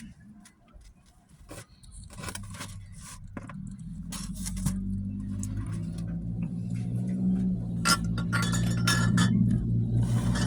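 Scattered light clicks and clinks of small objects being handled, with a steady low hum that comes up about four seconds in and grows louder.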